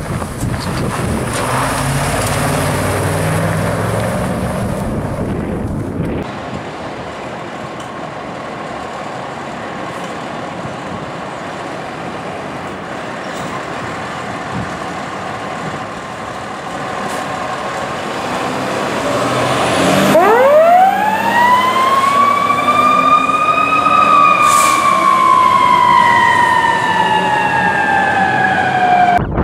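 Fire engine's diesel running under way, then about two-thirds of the way in a mechanical coaster siren (Federal Q type) winds up fast, peaks, and coasts slowly down in pitch as the truck pulls away.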